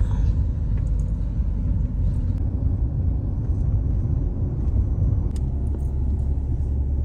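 Steady low rumble of road and engine noise heard inside a moving Mahindra XUV500 at highway speed.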